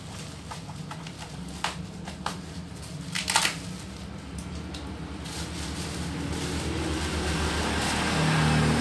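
Black plastic packaging rustling and crinkling as it is torn and unwrapped by hand, with scattered clicks and one louder rustle a little after three seconds. A low steady hum grows gradually louder over the second half.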